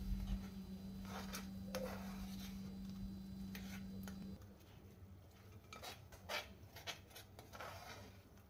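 A spoon stirring thick crab masala in a cooking pot: faint, irregular scrapes and clicks of the spoon against the pot, over a steady low hum that stops about halfway through.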